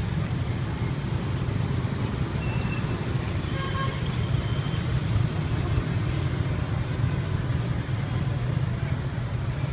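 Steady street traffic noise, a low rumble, with a few faint short higher tones over it.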